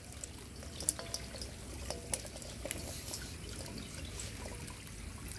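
Low steady trickle of water. A few faint sharp clicks and taps sound over it, from live climbing perch fry flipping in a steel bowl on a scale.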